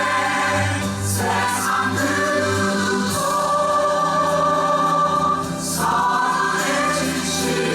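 A musical-theatre cast singing together as a choir over orchestral accompaniment, holding long notes that shift to new chords every couple of seconds.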